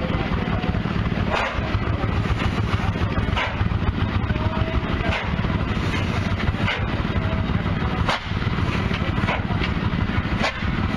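Large Sulzer stationary diesel engine (15 tons, 100 hp) running slowly. Each firing gives a sharp exhaust beat about every one to two seconds over a steady low drone.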